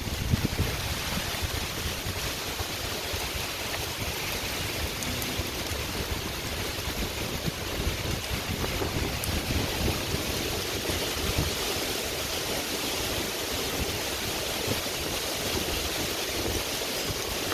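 Heavy rain and wind of a severe thunderstorm: a steady rushing downpour with a gusting low rumble underneath.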